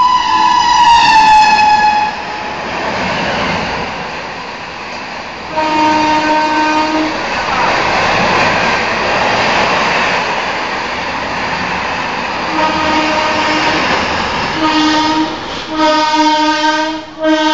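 An express train hauled by a WAP7 electric locomotive passes close by at speed. Its horn opens loud and high, with the pitch dropping as it goes by, then the coaches rush past with a steady noise. A lower horn sounds about four times, from about a third of the way in until the end.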